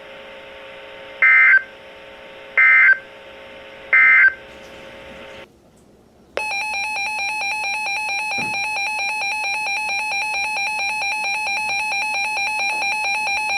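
Three short data bursts of the EAS/SAME end-of-message code from a Reecom NOAA weather alert radio, about 1.4 s apart over a faint hum, marking the end of a severe thunderstorm warning. After a second of quiet the radio's warning alarm starts, a rapid pulsing electronic beep held steady, signalling that a new warning is coming in.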